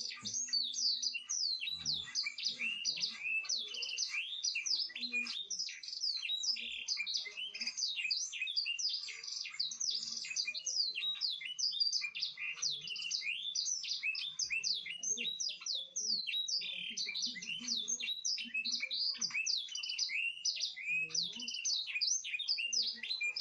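Many small birds chirping constantly, short high chirps overlapping with no break.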